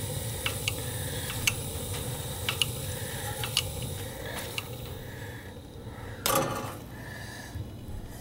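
Gas boiler burner running with a steady low rumble, overlaid by light metallic clinks and ticks in the first few seconds and a short scraping rustle about six seconds in.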